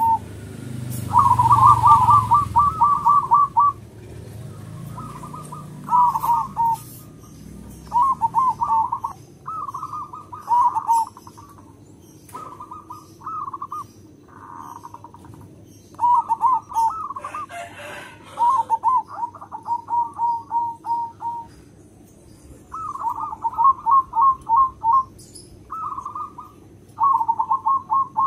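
Zebra dove (perkutut) cooing: about eleven phrases, each a quick stuttering run of coos, repeated every couple of seconds with short pauses between.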